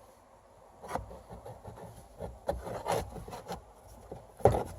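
A new cabin air filter rubbing and scraping as it is pushed into its plastic housing, with a few light knocks and the loudest knock near the end as it seats.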